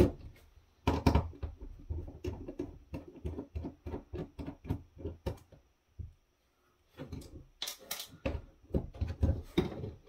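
Hands handling a small plastic electronics unit and its screw-on antenna: a quick run of small clicks and taps on the case, a short pause about six seconds in, then a few sharper knocks near eight seconds.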